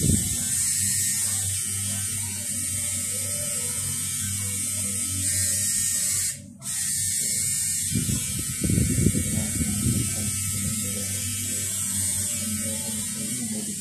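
Tattoo machine buzzing steadily as it works ink into skin, cutting out for a moment about halfway through.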